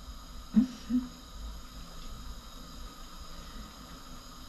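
Two short, low hums of a woman's voice about half a second and a second in, then a faint steady background hum.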